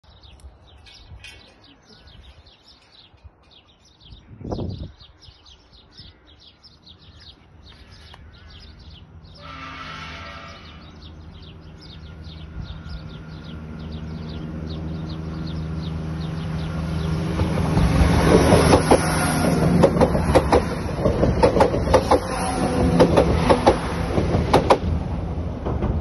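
Southern Class 171 Turbostar diesel multiple unit approaching and passing at speed: a diesel drone that grows steadily louder, then rapid wheel clatter over the rail joints as it goes by. Birds chirp in the first few seconds.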